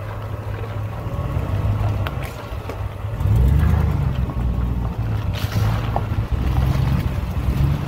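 Chevrolet Silverado pickup's engine running as the truck drives slowly along a muddy, rocky trail, rising and getting louder about three seconds in. The tyres crunch over stones and splash through puddles.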